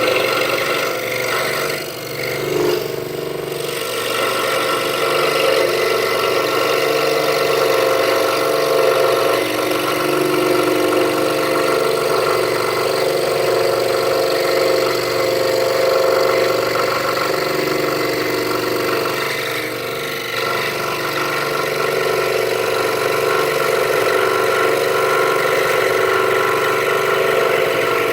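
Scroll saw running and cutting half-inch pine with a Pegas blade: a steady mechanical buzz from the reciprocating blade, dipping briefly twice.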